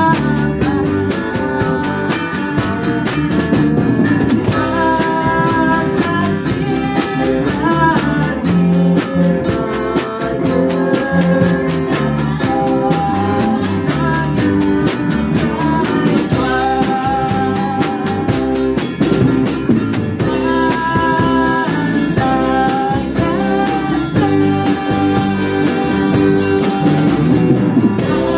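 A live band playing a song: a singer at a microphone over acoustic and electric guitars, with a drum kit keeping a steady beat on the cymbals.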